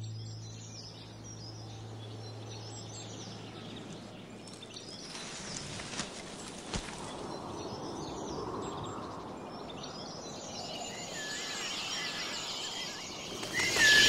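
Birds chirping over a soft wash of natural ambience, with a low held note from the plucked-string music dying away over the first few seconds. Near the end a louder, denser run of calls comes in.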